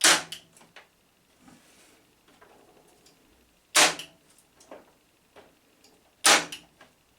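Parkside PET 25 C2 electric nailer firing three times, each shot a sharp loud crack as a brad nail is driven into wood, with small handling clicks between shots.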